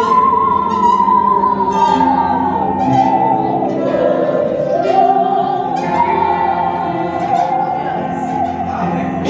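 Musical saw, its bent steel blade bowed with a violin bow, playing a slow hymn melody. It holds a singing tone with a wide vibrato that slides down in pitch about four seconds in and glides back up a second later.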